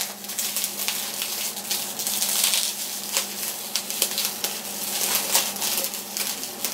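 Clear plastic wrapping crinkling and crackling as it is handled and pulled open, in a run of small irregular crackles.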